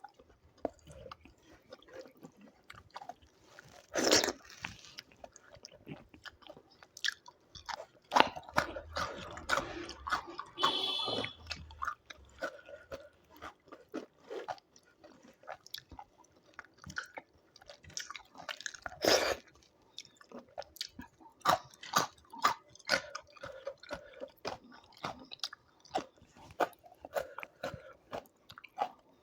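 Close-up eating sounds of a person chewing a meal of doi chicken and rice: repeated wet chewing and mouth clicks, with louder crunchy bites, the loudest about four seconds in and again a little after nineteen seconds.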